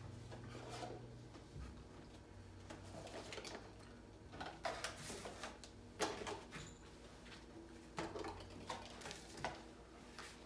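Thin plastic jugs and containers being handled on a table: scattered light knocks and crinkling rustles, a few at a time.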